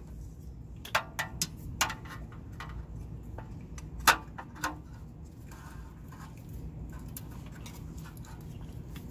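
Metal spark plug boot pliers clicking and clinking against metal as they are worked onto a plug wire boot: a few sharp clicks in the first two seconds, the loudest about four seconds in, over a steady low hum.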